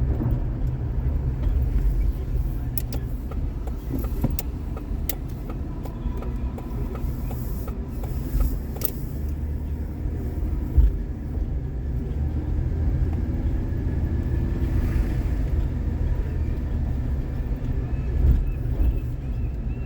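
Car cabin noise while driving: a steady low rumble of engine and tyres, with a few sharp clicks and a short thump about eleven seconds in.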